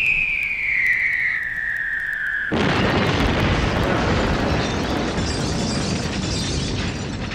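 Falling-bomb sound effect: a single whistle gliding down in pitch for about two and a half seconds, then a sudden explosion that rumbles on for about four seconds and eases off near the end.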